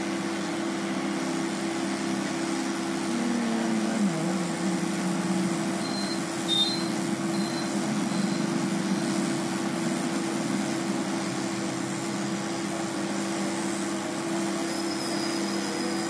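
A machine humming steadily with a low drone, with a few short high peeps about six to seven seconds in.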